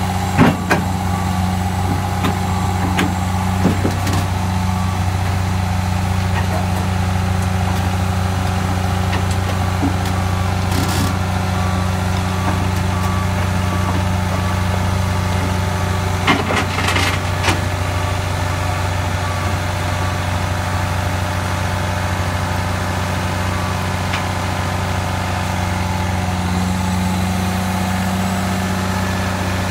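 Tigercat tracked feller buncher's diesel engine running steadily as the machine crawls onto a drop-deck lowboy trailer, with a few sharp metal clanks of its steel tracks on the deck, most of them about a second in and about 17 seconds in.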